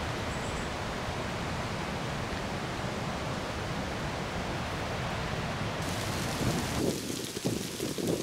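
Steady rushing outdoor noise. From about seven seconds in, gusts of wind buffet the microphone in uneven low rumbles.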